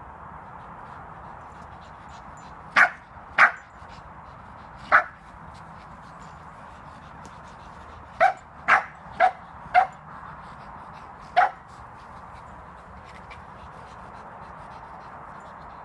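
Small dog giving eight short, sharp barks while play-fighting with another dog. Two come about three seconds in, one at five seconds, then a quick run of four, and a last one near the end, over a steady background hiss.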